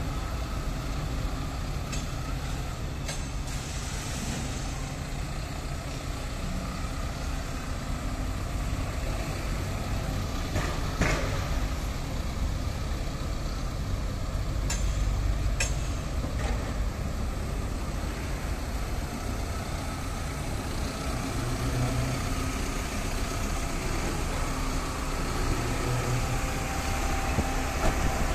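Tata Super Ace light truck's 1.4-litre diesel engine running steadily as the truck drives slowly, with a few short sharp clicks over the top.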